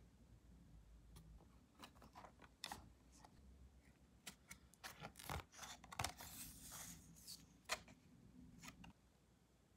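Faint paper and cardboard handling: a wallet box, its card insert and a folded instruction booklet being handled and opened by hand, with soft scratchy rustles and scattered light taps.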